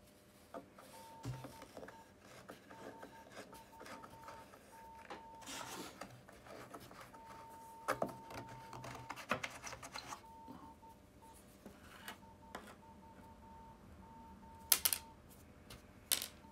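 Metal screwdriver scraping and clicking against rusted screws as they are worked out of an old portable record player's case, with a few sharper clicks, the loudest near the end. Underneath, a faint high tone keeps coming and going in short dashes.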